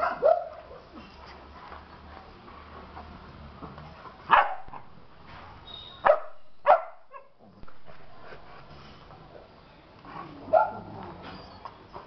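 Rottweilers barking in rough play: about five short, sharp barks and yelps spaced a second or a few seconds apart.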